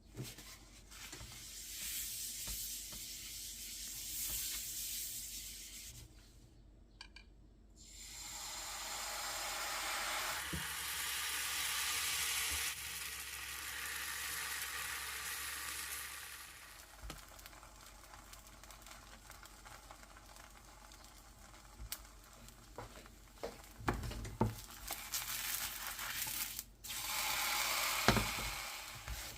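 Acacia-flower pancake batter of acorn and buckwheat flour sizzling in oil in a frying pan. The hiss swells and fades in spells, with scattered clicks and knocks of a utensil against the pan.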